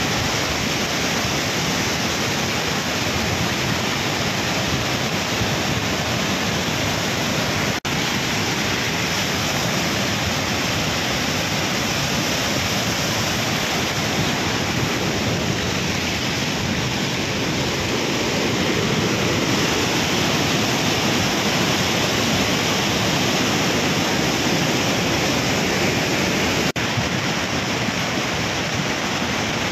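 Muddy floodwater rushing down a swollen river in a flash flood: a steady, even rush of water, broken twice by brief dropouts.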